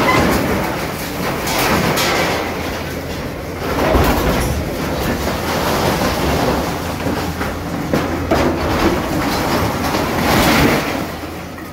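JCB tracked excavator working: its diesel engine running under a dense rumble, with repeated metal clanks and crashes of sheet metal and debris as a shed is torn down.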